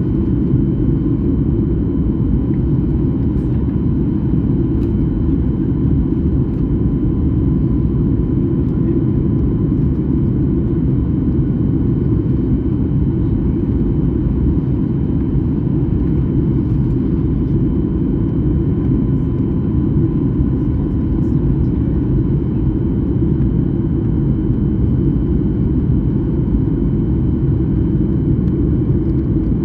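Steady jet airliner cabin noise heard from a passenger seat: a constant deep rumble of engines and airflow, with a faint steady whine on top.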